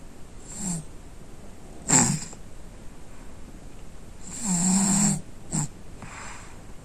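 A sleeping boy snoring, a series of irregular snores and snorts. The loudest is a short one about two seconds in, and a longer, pitched snore comes around four and a half seconds in.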